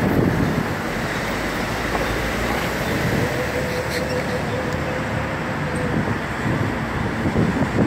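Steady road and wind noise of a car driving through city streets, heard from inside the car. A faint steady whine runs from about three to six seconds in.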